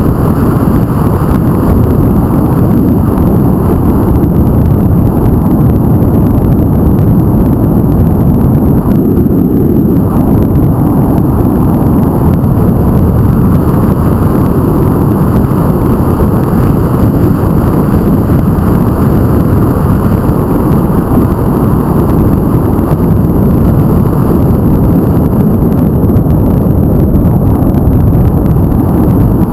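Wind buffeting the microphone of a camera on a moving vehicle, a loud steady low rumble with the vehicle's running noise mixed in.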